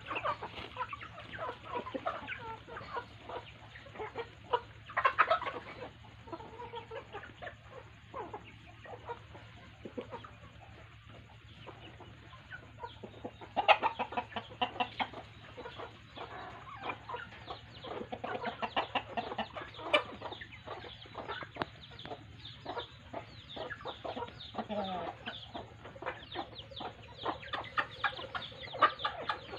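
Flock of native chickens clucking softly while feeding, with many quick taps of beaks pecking at feed on the ground, growing busier in the second half.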